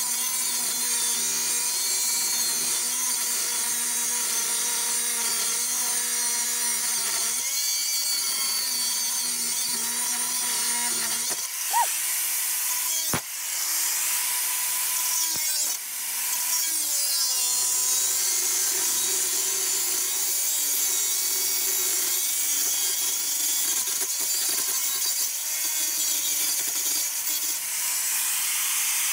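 Handheld angle grinder grinding into steel clamped in a vise: a steady, loud grinding hiss over the motor's whine. The disc is lifted off the metal twice about halfway through, and the motor's pitch shifts before it bites in again.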